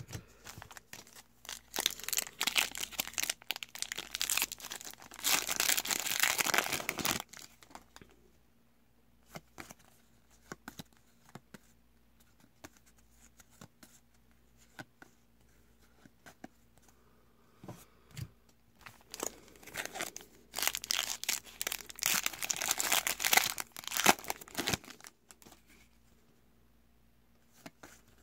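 Foil wrappers of Topps WWE trading card packs being torn open and crinkled, in two bouts of several seconds each, starting about two seconds in and again about twenty seconds in. Between them come soft clicks and flicks of cards being handled.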